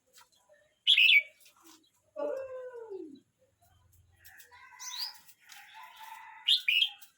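Red-whiskered bulbul singing: loud, sharp phrases about a second in and again near the end, with quieter warbling between. About two seconds in comes a lower call that falls in pitch.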